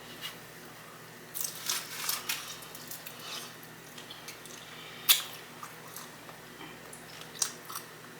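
Close-miked eating of sauced chicken wings: wet bites and chewing, with a burst of crackly clicks about a second and a half in and one sharp smack about five seconds in.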